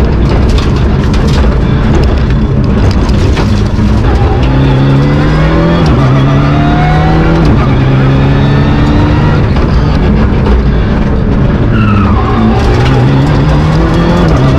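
Rally car engine heard from inside the cockpit at full throttle, climbing in pitch and dropping back at each gear change, several times in a row, over loud tyre and road noise; the pitch drops again about twelve seconds in.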